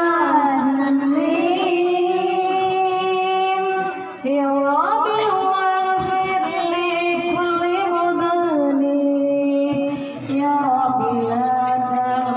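Sholawat sung into a microphone: a single voice holds long notes that slide from pitch to pitch, pausing for breath about four and ten seconds in.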